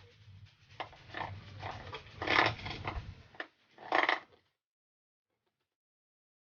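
A dog vocalising in short calls, the two loudest about two and a half and four seconds in, over a low hum; a little past the middle the sound cuts off to silence.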